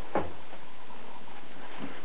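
Four-week-old Kooikerhondje puppies moving about and playing in their box, with one short, louder sound about a fifth of a second in and a few faint small sounds near the end.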